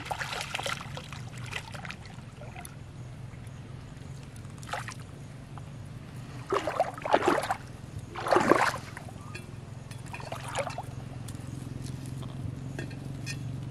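Water splashing and sloshing in several short bursts as a hooked suckermouth armoured catfish is pulled from a pond and handled, the loudest two bursts about seven and eight and a half seconds in, over a steady low hum.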